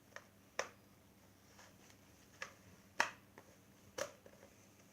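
About half a dozen sharp clicks and taps, scattered and irregular, the strongest about three seconds in, from a hairdryer and its nozzle being handled; the dryer is not running.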